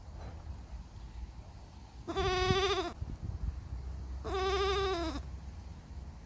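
Baby goat bleating twice: two wavering calls, each just under a second long, about two seconds apart, each dropping in pitch at the end. A low rumble runs underneath.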